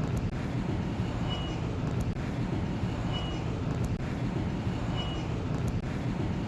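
Heavy vehicle engine running steadily, with a short high beep repeating about every two seconds.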